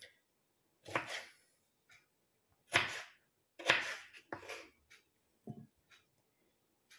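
Kitchen knife cutting tomatoes on a wooden cutting board: a run of irregular knocks of the blade on the board, about eight of them. The loudest come around three and four seconds in.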